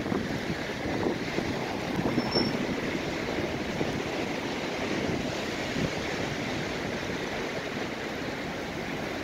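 Strong storm wind gusting, a steady rushing that swells and eases, with wind buffeting the microphone.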